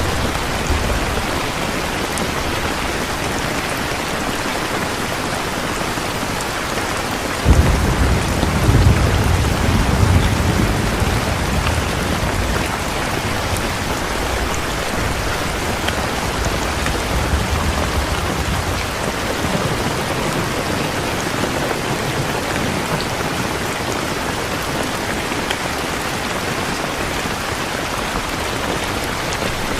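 Steady rain falling. About seven seconds in, a sudden low rumble of thunder sets in and dies away over several seconds.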